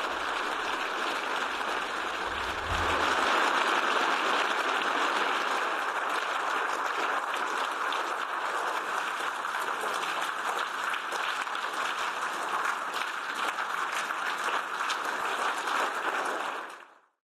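Sustained applause from a large crowd, dense and even, growing louder about three seconds in and cutting off near the end.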